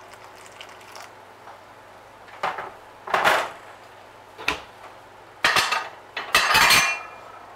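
Kitchen pots and dishes clattering: several separate knocks and clinks, starting a couple of seconds in.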